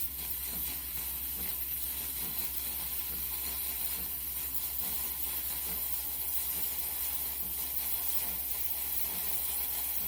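Steam wand of a Wirsh Home Barista Plus espresso machine purging with a steady, high hiss of steam, clearing water out of the wand before milk frothing.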